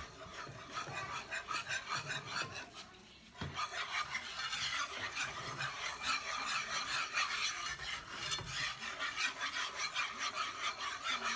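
Wire whisk scraping quickly and rhythmically around a pan of thick roux-based chili sauce, with a short pause about three seconds in.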